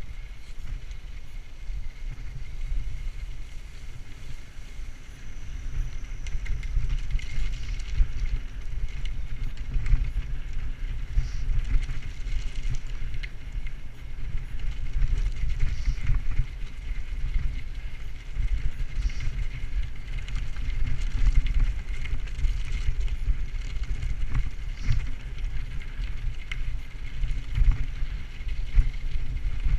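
Bicycle ridden over a rough grassy dirt and gravel path: a steady low rumble from the tyres and wind on the camera, with scattered clicks and rattles from the bike.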